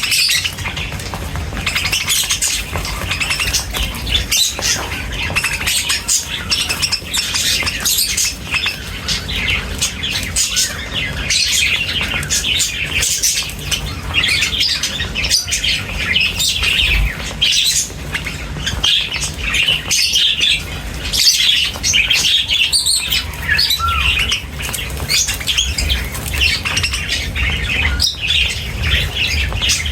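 Many birds chirping and squawking together in a dense, continuous chatter, over a steady low rumble.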